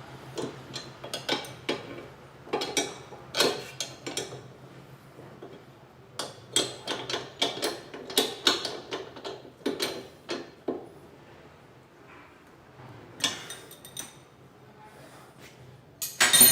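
Metal hand tools and car parts clinking and clanking irregularly, some strikes ringing briefly, with a louder clank near the end. A faint steady hum runs underneath.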